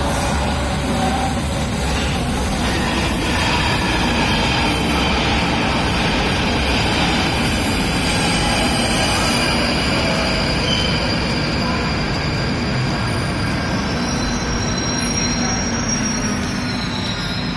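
London Underground Northern line 1995 Stock train running into the platform and braking to a stop: a steady rumble and rush of wheels on rail, with high wheel and brake squeal in the second half as it slows.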